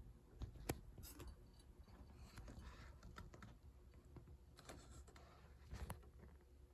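Faint handling noise: scattered light clicks and soft rubbing, with a few slightly louder clicks about half a second, one second and five seconds in, over a low hum.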